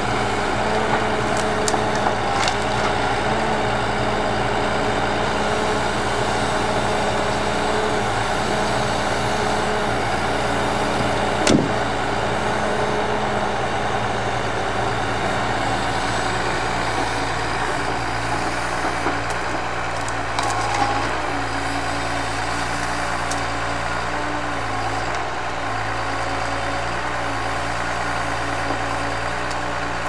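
Timber truck's diesel engine running steadily to drive the loader crane's hydraulics, with steady whining tones that shift in pitch as the crane moves. A few light clicks and one sharp knock, a little under halfway through, come from the grapple working among the wood.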